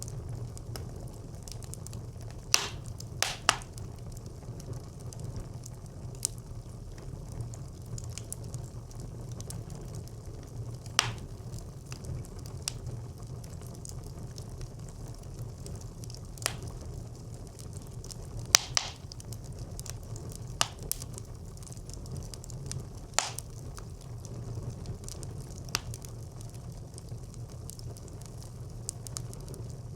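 Wood fire burning in a brick clay stove: a steady low rumble of flames with scattered sharp crackles and pops, the loudest about two and a half seconds in, then near eleven, sixteen, eighteen and twenty-three seconds.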